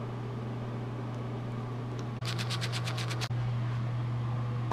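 A bathroom exhaust fan hums steadily. About two seconds in, a toothbrush scrubs against teeth for about a second in quick, even strokes.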